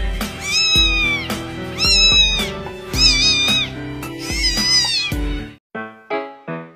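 A young kitten meowing: four high-pitched meows, each rising and falling and under a second long, over background music. The meows stop about five and a half seconds in and the music carries on alone.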